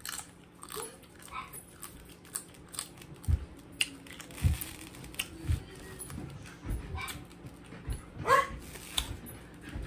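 A dog whimpering, with one short rising whine near the end, among the small clicks and cracks of boiled crab being picked apart and eaten.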